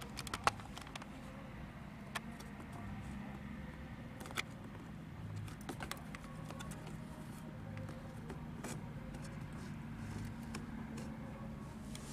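Faint clicks and scrapes of a plastic card pushing EL wire into the seam of the dashboard trim, a few scattered ticks over a steady low hum.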